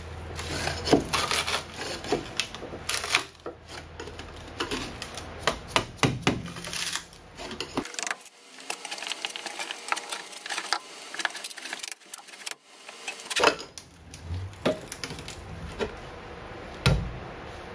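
Mallet tapping on a putty knife wedged between a mahogany board and the old fiberglass tabbing, in irregular sharp knocks, sometimes several a second, working the board loose. A heavier, duller thump comes near the end.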